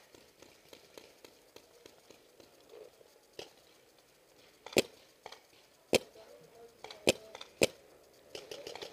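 Paintball fire: five sharp cracks a second or so apart, the four loudest in the second half, with some rustling of gear near the end.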